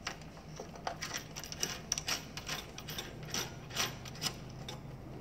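Stubby antenna being screwed by hand into its brass lock nut through the top of a metal vending machine cabinet: a run of irregular light clicks and scrapes as the threads and base turn against the metal.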